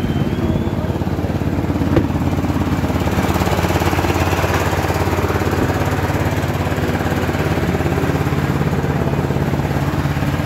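A small engine running steadily at one speed, loud and unchanging, with one short click about two seconds in.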